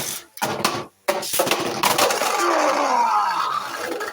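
3D printed Beyblade tops launched into the stadium, rattling and clashing as they spin. A whirring runs under the clatter and falls in pitch as the tops slow down near the end.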